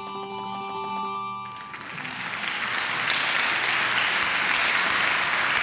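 A held musical chord that ends about a second and a half in, then applause that swells from about two seconds in and carries on steadily.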